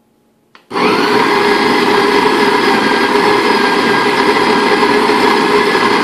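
Bodum Bistro electric coffee grinder grinding coffee beans with its stainless steel conical burrs. A click about half a second in starts it, then the motor and burrs run with a loud, steady grinding whine.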